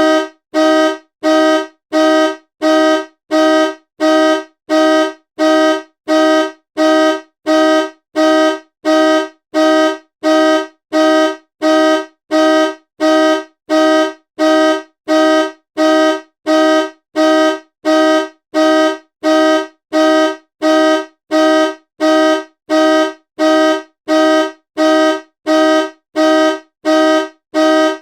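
Car horn honking in short, evenly spaced blasts, about three every two seconds, each blast a steady pitch with no glide.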